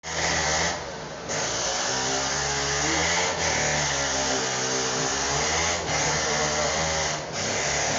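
Loud steady motor-driven hiss, like a blower or small compressor running. It dips briefly about a second in and a few more times.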